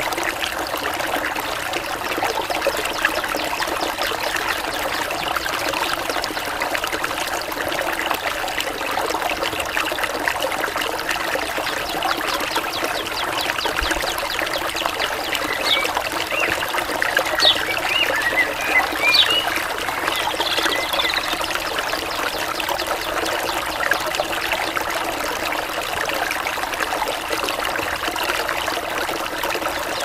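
Mountain stream trickling and splashing steadily over rocks, with a few brief high bird chirps about halfway through.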